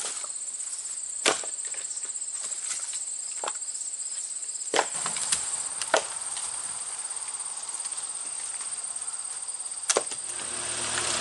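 About six sharp wooden knocks as split firewood logs are thrown onto a trailer load, over a steady high-pitched chorus of cicadas. Near the end a tractor engine comes in, running.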